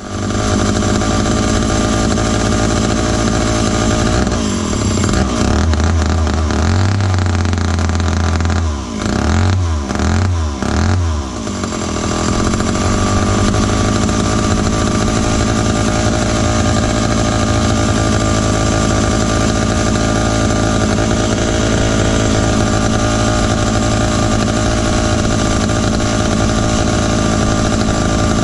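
Dayton 2Z383 (Lancaster 40IL) chainsaw's two-stroke engine running, its throttle blipped up and down three times in quick succession about nine to eleven seconds in, then running steadily.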